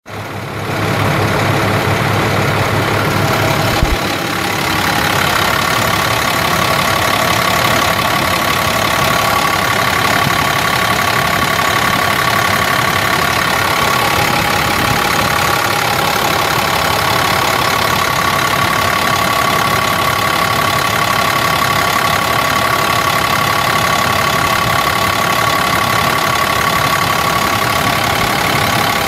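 International DT466 7.6-litre inline-six diesel engine of a 2003 International 7400 dump truck idling steadily, with a single knock about four seconds in.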